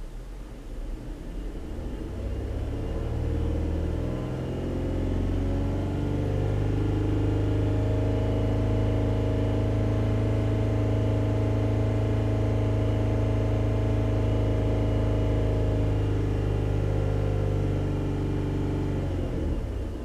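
2015 Ford Police Interceptor Utility's V6 engine revved in neutral, with its misfire profile not yet corrected. The revs climb over the first several seconds, hold steady and high for about ten seconds, then fall back near the end.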